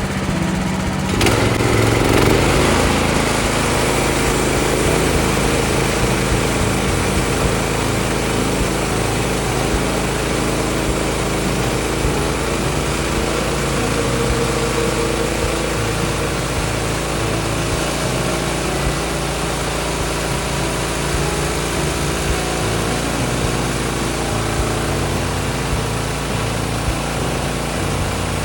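Small gas engine of a Woodland Mills HM126 portable bandsaw mill running steadily while the blade saws through a white oak log; the sawing noise comes in suddenly about a second in and then holds steady.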